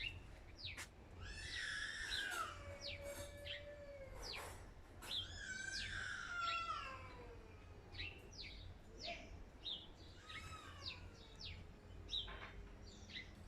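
Garden birds chirping: many short, quick downward chirps throughout, with a couple of longer, wavering calls mixed in, over a steady low background rumble.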